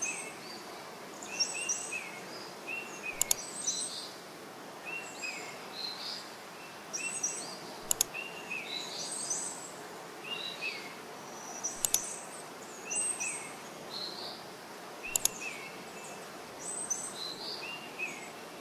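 Birds chirping in short, repeated calls over a steady outdoor hiss, with four sharp clicks standing out as the loudest sounds.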